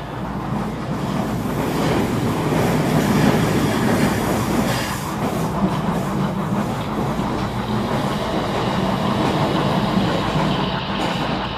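HO scale model passenger train with steam locomotives running past on the layout track: a steady rumble and clatter of the train on the rails.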